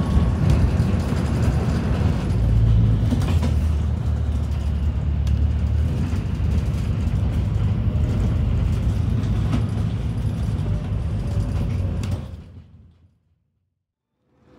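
Steady low rumble of road and engine noise heard from inside a moving road vehicle, with a few light clicks and rattles. It fades out to silence near the end.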